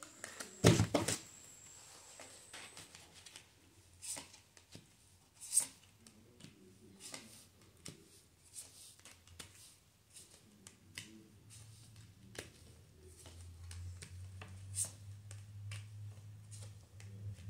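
Tarot cards being handled and laid down: a scatter of soft clicks and taps, with one louder knock about a second in. A low hum comes in about two-thirds of the way through.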